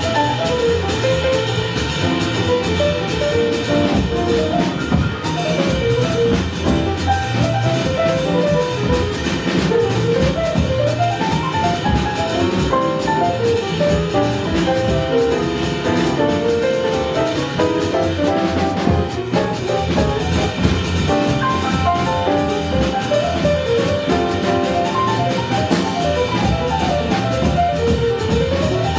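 Live small jazz combo of saxophone, guitar, piano, bass and drum kit playing, with fast melodic runs rising and falling over the rhythm section and cymbals.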